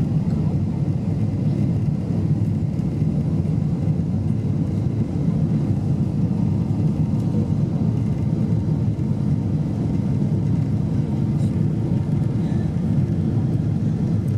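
Cabin noise inside a Boeing 747-8 airliner on descent: a steady low rumble of its engines and the airflow past the fuselage, with a faint steady hum in it.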